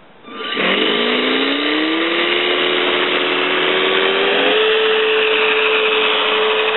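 Electric motor and plastic propeller of a small radio-controlled Cessna 747-1 model plane spinning up for a takeoff run: a whine that rises in pitch over the first few seconds, then holds steady from about four and a half seconds in.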